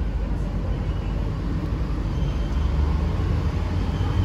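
Alstom NS-16 rubber-tyred metro train heard from inside the car as it pulls away from a station: a steady running rumble, with a low motor hum that steps up in pitch in the second half as the train gathers speed.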